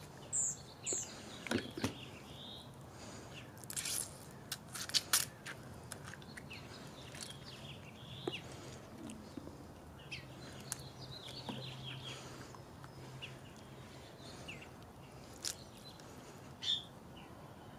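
Cooked California pink crab shell crackling and snapping as it is broken apart and the meat picked out by hand, in scattered sharp clicks. Birds chirp now and then in the background.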